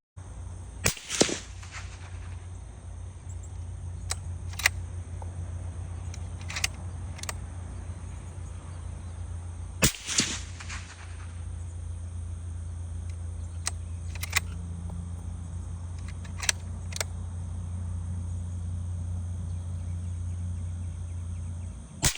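A series of suppressed rifle shots from a rifle fitted with a Diligent Defense Enticer L suppressor, spaced several seconds apart. Each shot is a sharp crack followed by a short echo. A steady low hum runs underneath.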